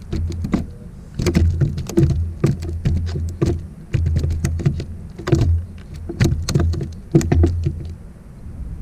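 Irregular clicks and knocks on board a fishing kayak, several a second in uneven clusters, over low thumps.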